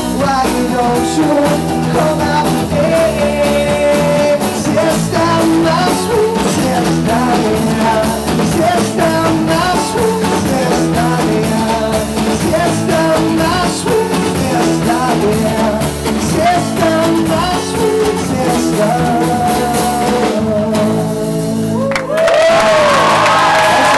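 Live rock band music: a male singer with guitar accompaniment, his voice rising and bending over the chords. Near the end the song stops and the audience breaks into applause and cheering.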